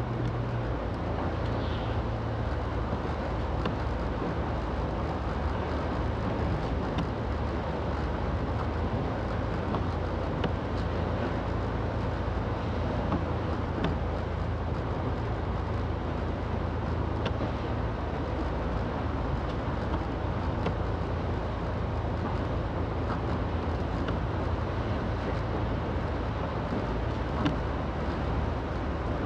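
Steady road noise inside a moving car's cabin: a low engine and drivetrain hum under a constant rush of tyre noise.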